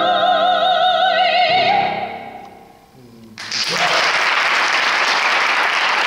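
A woman sings a held final note with wide vibrato over sustained piano, and the sound dies away about two and a half seconds in. Just past halfway the audience bursts into applause, which carries on steadily.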